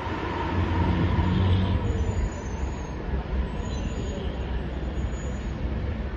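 A bus driving past close by: its engine rumble swells about a second in, over a steady rumble of road traffic.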